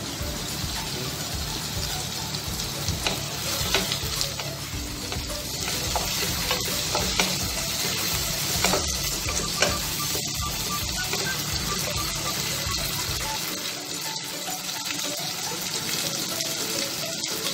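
Sliced tomatoes, onions, garlic and ginger sizzling in hot oil in a pot while a wooden spatula stirs them, with scattered scrapes and taps of the spatula against the pot.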